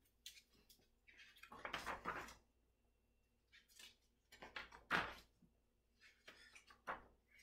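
Pages of a large picture book being opened and turned by hand: a handful of short papery swishes and rustles, the loudest about five seconds in.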